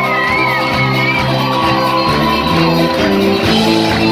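A live band plays an upbeat folk-pop song on acoustic guitar, banjo, drums and keyboard in a large room. A high held note sounds over the band and ends a little over a second in.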